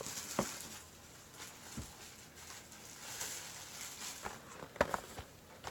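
Faint scattered taps and rustles of a trading-card box and its foil packs being handled, a few small clicks a second or so apart over a low hiss.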